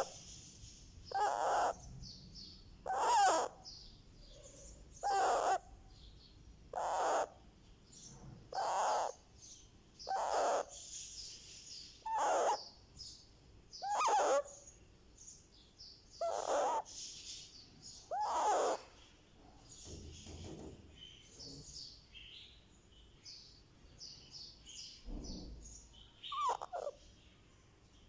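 Baby ringneck parrot calling over and over, a loud call about every two seconds with soft chatter between. The calls stop for a few seconds past the middle and start again near the end. These are sounds its owner takes for happy, contented calls.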